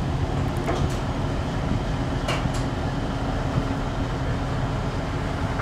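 An engine idling steadily at a constant low pitch, with a few light knocks.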